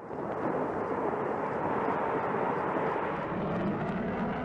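Fighter jet engine noise, a steady rush, as the jet takes off and climbs away.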